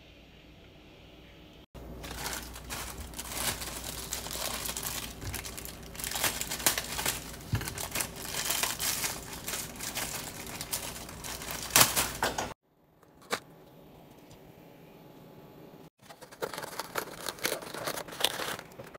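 Crinkling and crackling of food packaging being handled, full of sharp clicks, as a foam takeout clamshell box is handled and closed. The noise stops abruptly about two-thirds of the way through, leaving one click, and starts again near the end.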